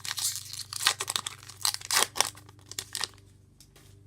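The wrapper of a 2019 Topps Gypsy Queen baseball card pack being torn open and crinkled: a run of sharp ripping and crackling that stops about three seconds in, leaving a few faint clicks.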